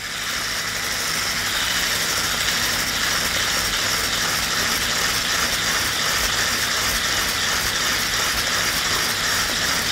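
Electric hand blender with a wire whisk attachment running steadily at a raised speed, whipping egg whites in a glass bowl towards stiff peaks.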